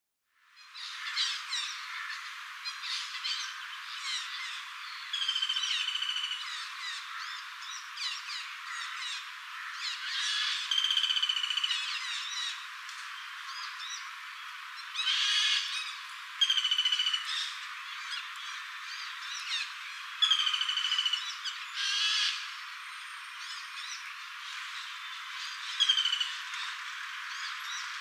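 Female flameback woodpecker calling about five times, each call a short rattle lasting about a second. Other birds chirp between the calls.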